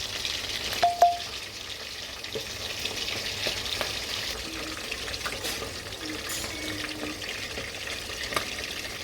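Steady hissing in a kitchen, with scattered light clicks of handling and a sharp, briefly ringing clink of a dish or utensil about a second in.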